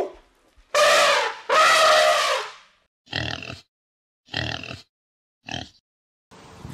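An Asian elephant trumpeting, two loud calls one after the other, followed by a pig grunting three times in short bursts. A steady hiss with a low hum comes in near the end.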